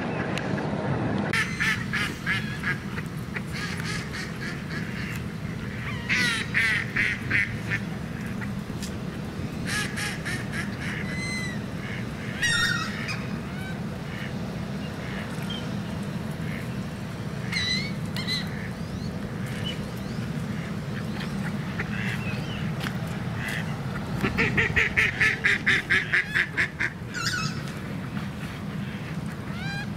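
Mallard ducks quacking in scattered short series, ending in a long run of rapid quacks near the end, over a steady low rumble.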